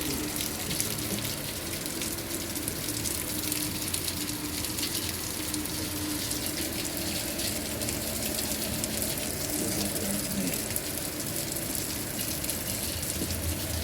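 Steady rain falling, an even hiss of water with no breaks.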